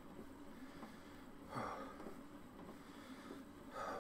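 A man breathing hard while pedalling an exercise bike: two short, breathy exhales about two seconds apart over faint background noise.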